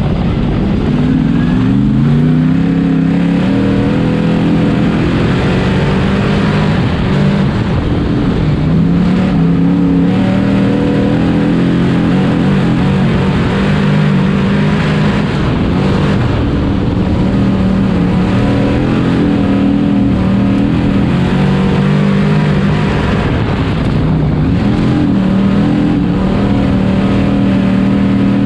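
Sportsman Modified dirt race car's V8 engine running hard, heard from the cockpit. Its pitch climbs about a second in, then rises and falls again and again as the throttle comes on and off around the laps.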